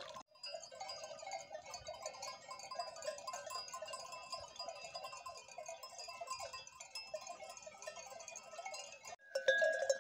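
Many sheep bells clinking and ringing irregularly across a grazing flock, faint, with a louder, closer bell near the end.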